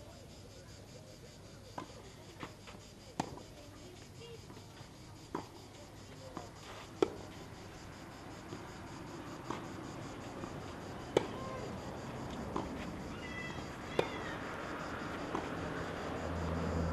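A tennis rally on a clay court: sharp racket-on-ball strikes and ball bounces about every one to two seconds, about a dozen in all. A murmur of spectators grows louder near the end.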